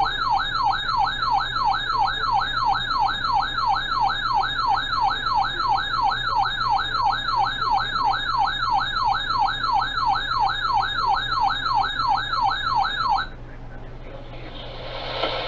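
Electronic warbling alert tone broadcast over the radio to announce an emergency alert. It sweeps rapidly up and down about three times a second and cuts off suddenly about 13 seconds in. Radio hiss rises near the end.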